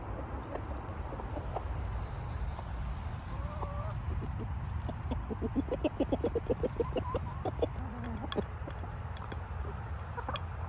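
Backyard chickens clucking, with a quick run of short calls, about eight a second, a little past halfway through, over a steady low rumble.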